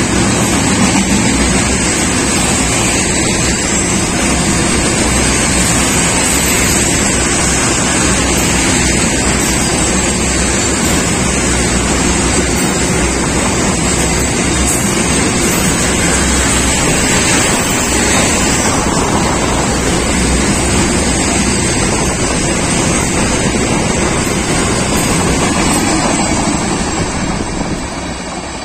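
Steel-coil-loaded freight train rolling past close by, a loud, steady rumble of wagon wheels on the rails that fades near the end as the last wagons go by.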